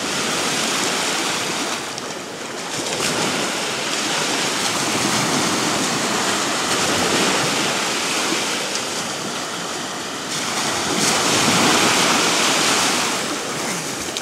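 Small waves breaking and washing up on a sandy beach: a steady rush of surf that swells and eases every few seconds.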